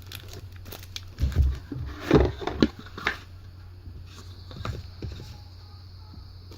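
Fat pack contents being handled and set down: a few knocks and rustles of cardboard and packaging in the first half, then quieter handling, over a steady low hum.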